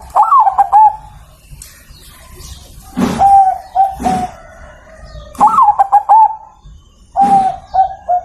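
Zebra dove (perkutut) cooing while held in the hand: four short phrases of wavering, ringing coos about two seconds apart.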